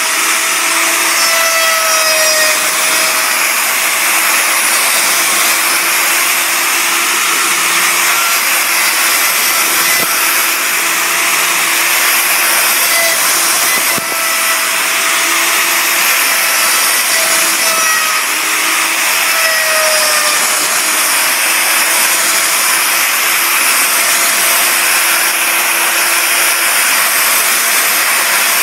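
Portable band sawmill running and cutting through a log: a loud, steady sawing noise from the blade in the wood, over the hum of the saw head's motor.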